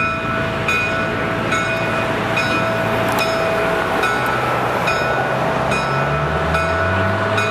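Railway warning bell ringing at a steady pace, a little more than one strike a second, over a steady tone that stops about halfway. An engine's hum rises near the end.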